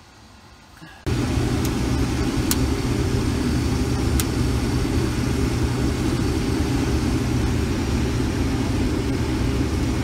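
Combine harvester running through standing corn: a steady, loud machine drone from the engine and corn head that cuts in abruptly about a second in, with a few short sharp ticks in the first few seconds.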